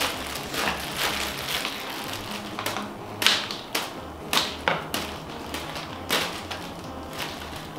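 Knife cutting on a cutting board: a string of irregular sharp taps and knocks as a mango is chopped into pieces.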